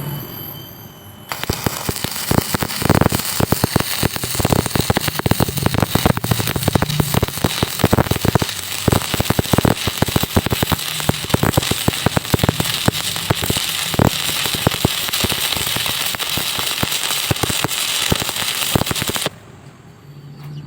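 Electric arc welding: the arc crackling and sizzling steadily, starting suddenly about a second in and cutting off shortly before the end as the arc is broken.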